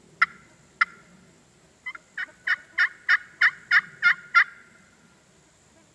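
Hand-held turkey call imitating a hen: two single yelps, then a run of about nine yelps at roughly three a second, growing louder. It is calling meant to strike up a gobbler and get him to answer.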